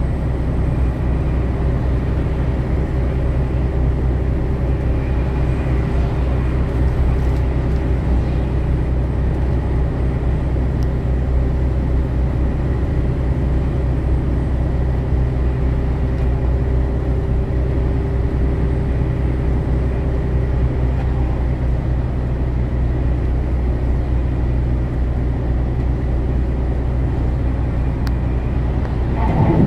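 Steady low drone of engine and tyre noise heard inside a vehicle's cab cruising at highway speed. A brief bump or rustle comes near the end.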